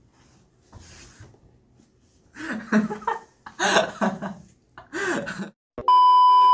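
Young men laughing hard in repeated bursts. Near the end, a loud, steady test-tone beep cuts in, the sound effect of a colour-bars edit transition.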